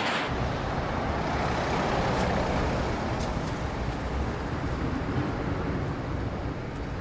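City street traffic noise: a steady rumble of road vehicles, its low end growing stronger just after the start.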